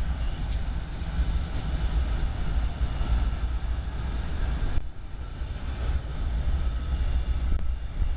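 Norfolk Southern diesel-electric locomotives running with the empty coal train stopped: a steady low engine rumble. A hiss over it cuts off abruptly about five seconds in.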